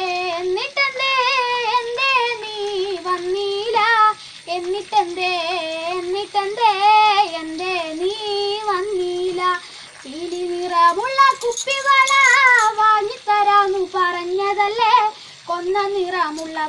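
A girl singing solo: a slow melody with wavering held notes, in long phrases broken by short pauses for breath about four, ten and fifteen seconds in.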